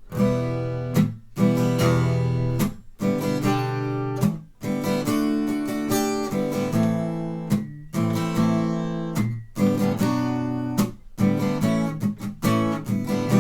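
Acoustic guitar strummed slowly in the gallop pattern, triplets of down-up-down strokes with the third accented, moving through the chords Em, G, D, Am, Bm and A. Sharp muted-string strokes between the chord changes come every second or two.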